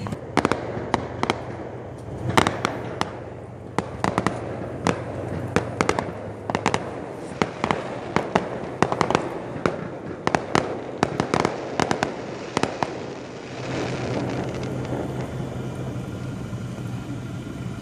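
Aerial fireworks going off: a rapid, irregular string of sharp bangs for about thirteen seconds, then a steadier hiss with a low hum near the end.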